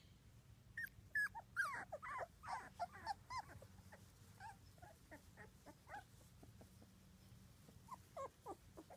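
Two-week-old Labrador puppies squeaking and whimpering: a quick run of short, high squeaks in the first few seconds, then scattered ones, and a few more near the end.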